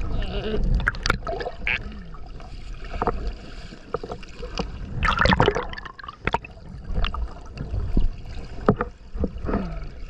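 Swimming with a submerged action camera: muffled underwater gurgling and sloshing of moving water with irregular knocks, and a louder rush of water about five seconds in as the camera nears the surface.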